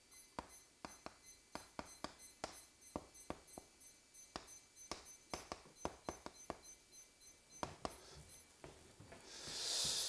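Chalk tapping and scraping on a blackboard as characters are written: a string of sharp, irregular taps. A hiss swells near the end.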